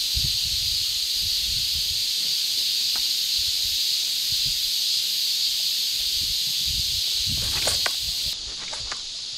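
Steady high hiss of a cicada chorus, with wind buffeting the microphone in low thumps. Near the end there is a short burst of splashing as a hooked fish breaks the water's surface.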